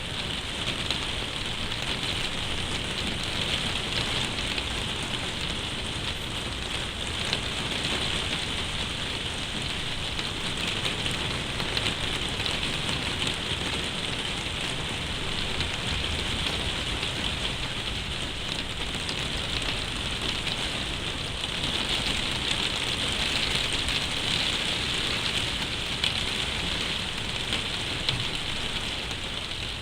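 Heavy rain drumming steadily on a plastic roof: a dense patter of drops.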